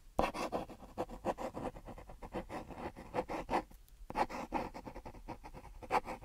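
Pencil sketching on paper: rapid scratchy strokes in two runs, with a brief pause near the middle.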